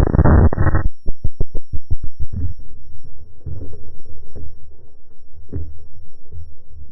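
Muffled underwater sound from a diver's camera housing. A loud rushing burst at the start is followed by a quick run of sharp knocks, about five a second, then irregular low throbbing pulses.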